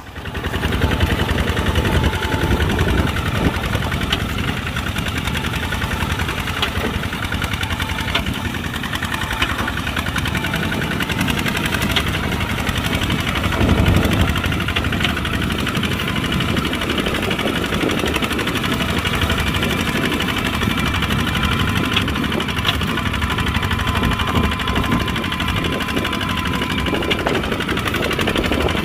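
Kubota RT140 two-wheel walking tractor's single-cylinder diesel engine running steadily under plowing load, a knocking diesel beat, briefly louder about halfway through.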